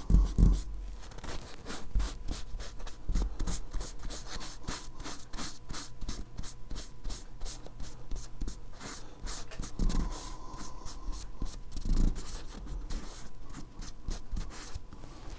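Cloth rag rubbing back and forth over a gun's engraved metal markings, wiping off excess paint from the color fill: a continuous run of quick, scratchy strokes with a few soft bumps.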